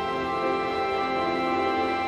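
Background music with soft, sustained held notes.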